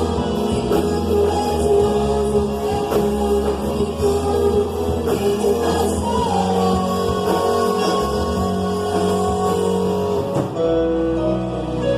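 A band playing a gospel song with singing. About ten and a half seconds in, the full sound drops away to a softer, thinner accompaniment.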